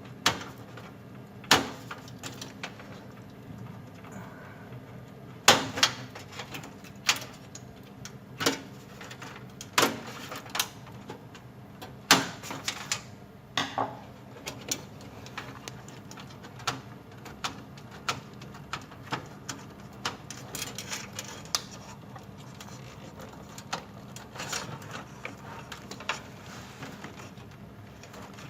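Irregular sharp clicks and knocks of hand tools, screws and small metal parts being handled while a computer is taken apart. The loudest knocks come in the first half.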